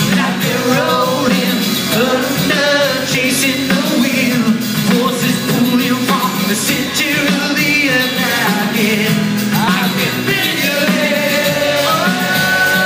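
Loud live rock music with a sung vocal line over the band.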